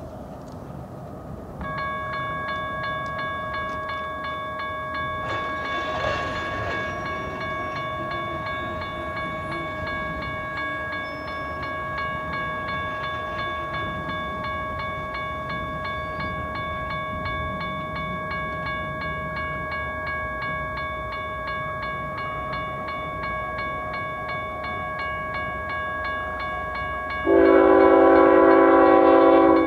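Railroad grade-crossing warning bell starts about two seconds in and rings steadily as the crossing activates for an approaching train. Near the end an approaching locomotive's air horn sounds loudly as the train nears the crossing.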